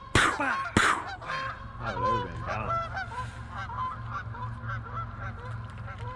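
A flock of geese honking, many short calls overlapping and repeating throughout. Two loud knocks in the first second, over a steady low hum.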